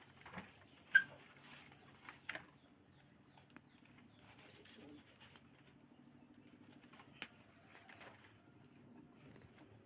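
Faint scuffling and handling sounds as a goat is held and dosed with liquid medicine by mouth: scattered soft knocks and rustles, with a sharp click about a second in and another about seven seconds in.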